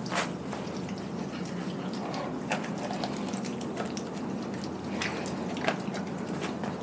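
Doberman licking and chewing a whole raw chicken in a glass bowl: wet smacking and lapping, with a sharp click every second or two.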